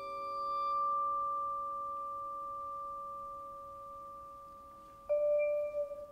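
Vibraphone played with a bow and mallets. A long pure bowed tone swells in and slowly fades while lower notes ring on. About five seconds in, a single mallet strike sounds a new note that rings.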